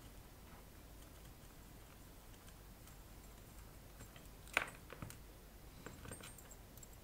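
Handling of a partly disassembled wirewound rheostat and a screwdriver: a sharp metallic click about four and a half seconds in, then a few softer clicks and knocks as the metal parts are moved. Quiet before that.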